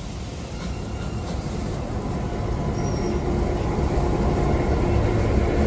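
Heritage diesel locomotives, Victorian Railways T class T364 and an S class, rolling slowly past: a low engine rumble with a faint steady hum, growing steadily louder as the locomotives draw near.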